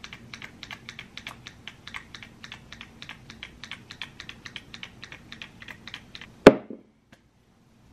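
A fast, even run of light clicks, about eight a second, like typing or tapping. It ends in one loud knock near the end.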